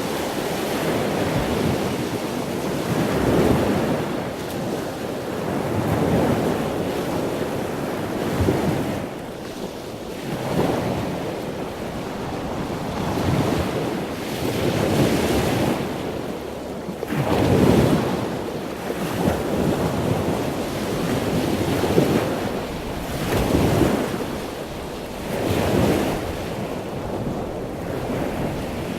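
Wind buffeting the microphone over rushing sea water, in irregular surges every couple of seconds.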